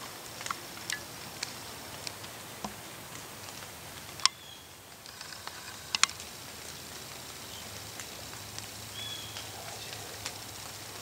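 Quiet woodland ambience with scattered light ticks and patter, a few short high chirps, and two sharp clicks about four and six seconds in.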